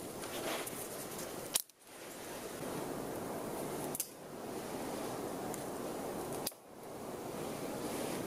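Steady rushing hiss of wind, broken by three sharp clicks, each followed by a brief drop in level.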